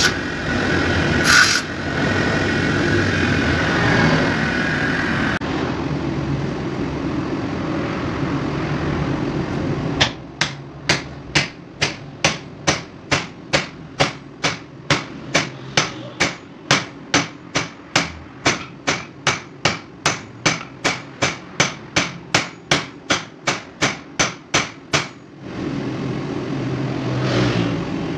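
Bench grinder grinding metal for the first ten seconds or so. Then a long run of sharp, evenly spaced knocks, about two or three a second for some fifteen seconds: the butt of a small hammer's wooden handle driven down on a steel anvil, seating the restored head on its new handle. A steady noise returns near the end.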